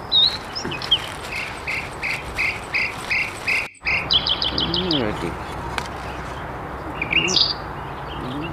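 Outdoor chirping: a series of short high chirps, about two a second, then a quick rattle of faster, higher chirps just after the sound briefly cuts out about four seconds in.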